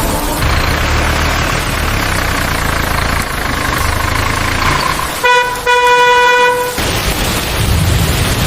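Steady rain hiss, with a vehicle horn honking about five seconds in: a short toot, then a longer one of just over a second.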